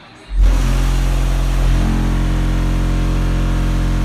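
An SPL bass 'burp' from a car audio system's two Skar ZVX-15v2 15-inch subwoofers, heard from outside the car: a single very loud, steady low tone around 44 Hz with buzzing overtones, starting suddenly about a third of a second in and holding without a break. The meter reads it at about 154.5 dB.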